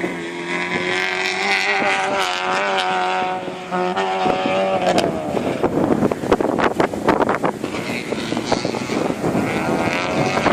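Rally cars at full speed: an engine held at high revs and slowly climbing, then dropping in pitch about four seconds in, followed by a few seconds of dense crackling and popping, with another engine note rising near the end.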